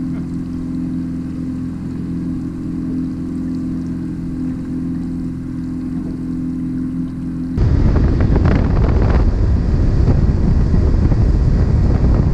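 Boat's outboard motor running at a steady drone. About seven seconds in it cuts abruptly to a much louder rush of wind buffeting the microphone, over the boat running at speed.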